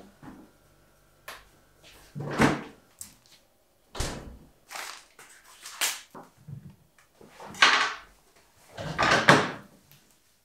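Groceries being handled and put away at a kitchen table: a string of separate knocks and rustles, about six loud ones spread over ten seconds with quiet gaps between.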